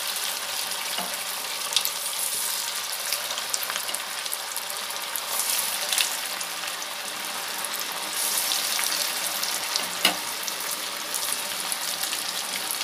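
Poha cutlets deep-frying in hot oil in a steel kadai: a steady, dense sizzle full of fine crackling, with a few sharper pops.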